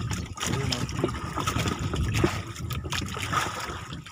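Sea water lapping and trickling against the hull of a small wooden outrigger boat, with a few light knocks.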